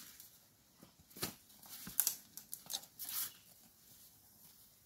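A grazing buffalo calf ripping and cropping leafy plants, heard as a handful of short, sharp tearing and rustling sounds between about one and three and a half seconds in.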